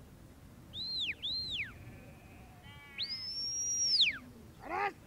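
Sheepdog handler's whistle commands to a working dog: two short notes that rise and fall, then a long high note held for about a second before dropping away. A sheep bleats once near the end.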